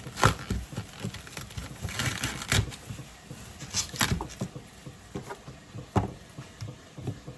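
Irregular light knocks, clinks and patter of kitchen work as chopped celery is put into a cooking pot, with a few sharper clacks of a utensil against the pot or board.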